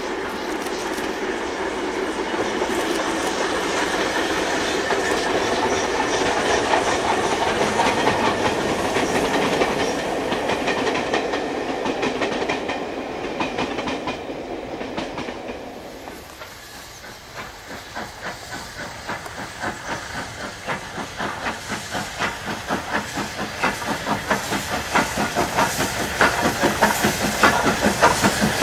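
LNER K4 three-cylinder 2-6-0 steam locomotive running with a train. For about the first half there is a steady rush of running noise and steam. After a short dip it passes close by at low speed with a regular beat of two to three pulses a second, growing louder toward the end.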